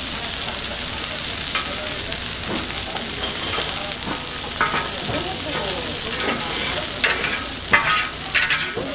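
Oil sizzling steadily on a flat griddle as small Korean meat patties (donggeurangttaeng) fry. A metal spatula scrapes and clicks against the griddle as the patties are turned, with a few sharper clicks near the end.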